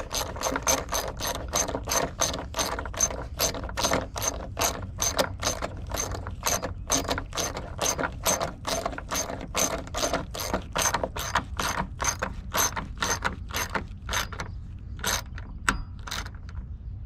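Socket ratchet wrench clicking steadily, about three clicks a second, as the battery hold-down wedge bolt is tightened. The clicking thins out to a few single clicks and stops near the end.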